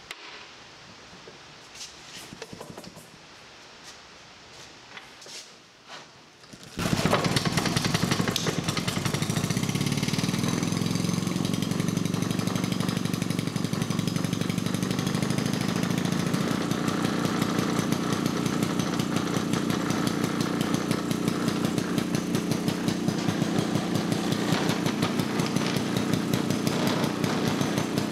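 A 1920s Jacobsen hit-and-miss engine being rope-started. After a few seconds of faint handling noise it fires and starts all at once, about seven seconds in. It then runs fast and steady at its ungoverned factory speed, with a rapid, even firing beat.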